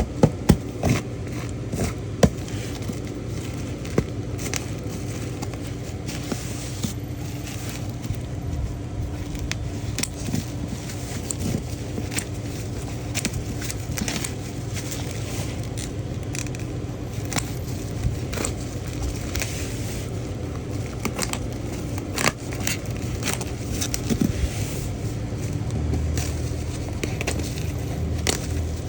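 Parcel packaging being handled and opened, with irregular clicks, taps and scraping over a steady low hum.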